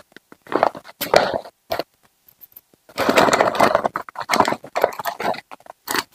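Painting tools handled off-frame: irregular scraping, rattling and clicking, with a longer, busier stretch of it about three seconds in.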